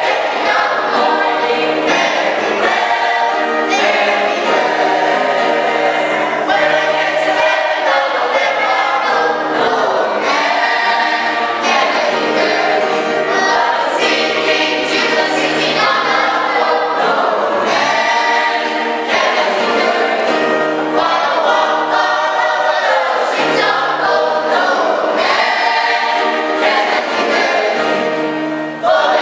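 A choir singing a gospel song.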